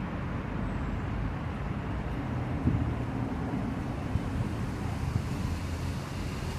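Steady outdoor background rumble, mostly low in pitch, with no distinct events.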